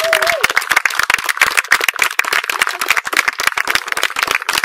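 A crowd applauding, many hands clapping without a break.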